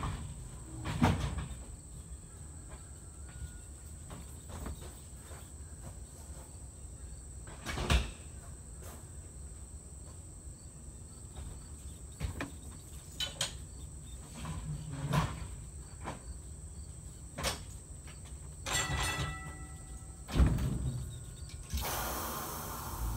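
Scattered knocks and clicks, a few louder than the rest, over a steady high-pitched drone of insects; a hiss rises near the end.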